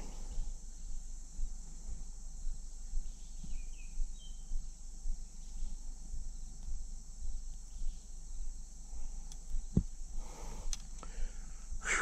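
Steady high-pitched insect chorus, with two brief chirps about four seconds in and a single sharp click near ten seconds.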